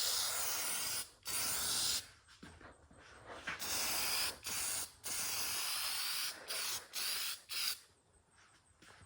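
Aerosol can of clear spray lacquer spraying in about eight short bursts with brief pauses between them, stopping about eight seconds in.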